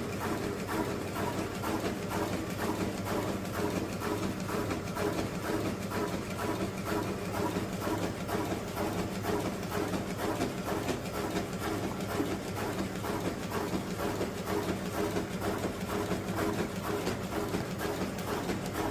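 Filling machine running steadily: a constant hum with fast, even clicking from its moving parts.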